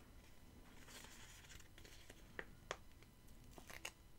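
Near silence with faint handling of paper stickers: a few soft ticks and light rustles as stickers are peeled from a sheet and pressed onto a planner page.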